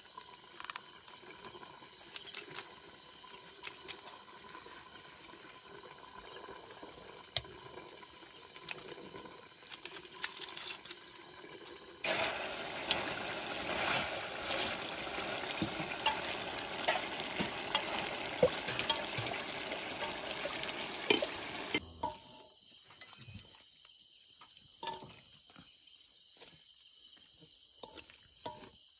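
Chunks of meat stir-fried in a hot wok, sizzling loudly while chopsticks knock and scrape against the pan. The sizzle starts about twelve seconds in and cuts off abruptly about ten seconds later. Before and after it there is only a faint hiss with scattered clicks and clinks.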